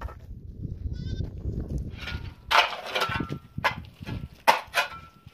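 Goats bleating: one wavering bleat about a second in, then a run of loud, harsh bleats from about two seconds in. A low rumble sits underneath for the first two seconds.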